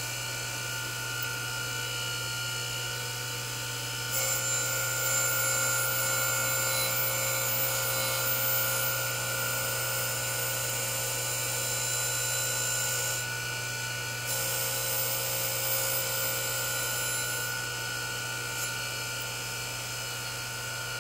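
Sharp SG-618 surface grinder running, its wheel spindle giving a steady hum and whine while the wheel grinds a workpiece on the magnetic chuck. A louder, hissing grinding sound comes in about four seconds in, drops out briefly past the middle, then returns before fading toward the end as the table traverses the work under the wheel.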